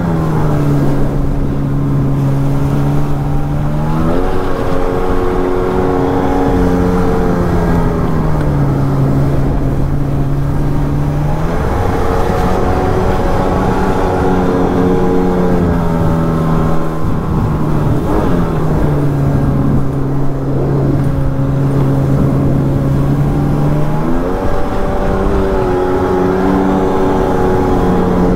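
A 1999 Sea-Doo GTX Limited's 951 cc two-stroke twin runs hard under way on the water. Its pitch steps down and climbs back up several times, in swings of about four to seven seconds, over a steady rush of water and wind.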